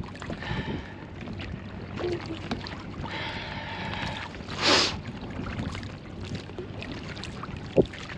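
Choppy sea water lapping and slapping against the hull of an inflatable dinghy, with wind. A louder splash comes about halfway through, and a sharp knock near the end.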